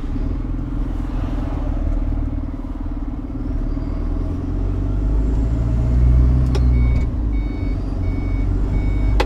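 Lorry's diesel engine and road noise droning inside the cab; the engine rumble grows louder about halfway through. Near the end comes a run of about four short, high electronic beeps.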